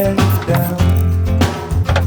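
Background music: a song with guitar, bass and drums.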